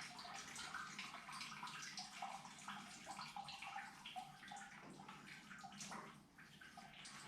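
Coolant draining from the engine and radiator through a hose into a bucket: a faint, steady trickling splash that eases briefly about six seconds in.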